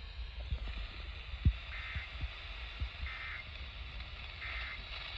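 Hissy off-air radio audio carrying three short, identical data-tone bursts about 1.4 s apart. These match an Emergency Alert System end-of-message (EOM) signal. Low pops of static occur in the background, the loudest about a second and a half in.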